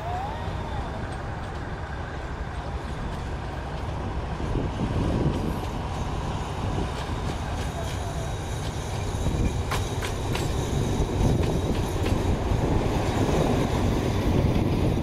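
Train rumbling past on the tracks: an Alsthom diesel-electric locomotive and then passenger coaches, a steady low rumble that grows louder. A few sharp wheel clicks over the rail joints come about ten seconds in.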